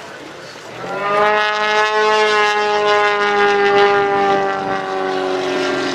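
Extra 300 aerobatic plane flying close by: its propeller engine swells in about a second in, then holds a loud steady drone that slowly drops in pitch as it passes.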